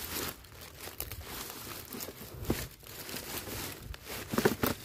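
Irregular rustling and crinkling, with a few sharper crackles that are loudest near the end.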